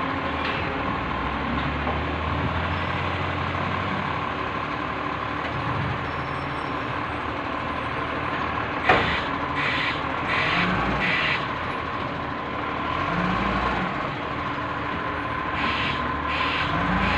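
Side-loading garbage truck running steadily as it collects wheelie bins. A sharp bang comes about nine seconds in, followed by four short bursts of hiss, and another run of hiss bursts near the end.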